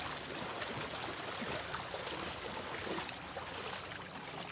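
River water washing against and over a moving bamboo raft: a steady rushing and trickling.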